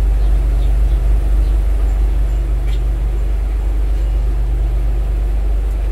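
Steady low mechanical hum of a food truck's onboard machinery running, even and unbroken.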